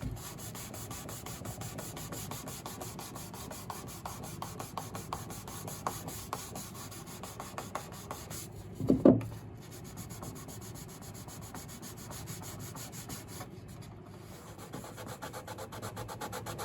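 Sandpaper rubbing steadily over the hard shellac finish of a piano soundboard, smoothing the edge where a thick vinyl decal meets the board. A brief louder knock comes about nine seconds in.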